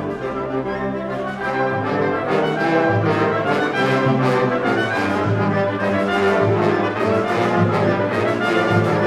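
Orchestra playing an overture live, full held chords that move every second or so and swell a little louder about two seconds in.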